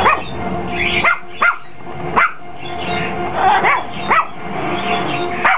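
Pomeranian barking: about seven short, sharp barks at uneven intervals, some in quick pairs, over background music.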